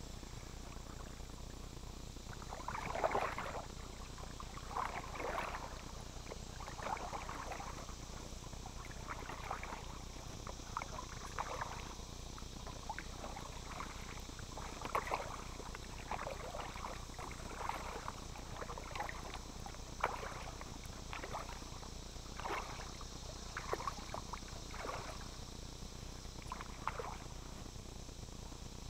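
Kayak paddle strokes in calm lake water: the blade dipping and splashing, with water trickling off it, about one stroke every second or two.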